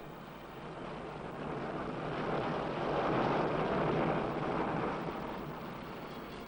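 Rocket engines at launch: a rushing noise that swells to its loudest about three seconds in, then fades.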